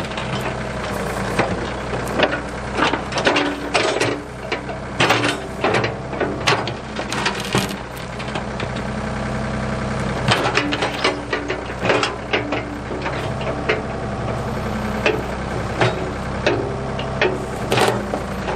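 Ford 555 backhoe's diesel engine running at a steady speed, with many sharp knocks, clanks and cracks over it throughout.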